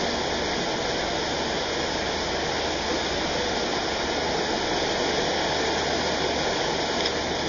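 Steady rushing of a mountain valley stream, a continuous even wash of water noise.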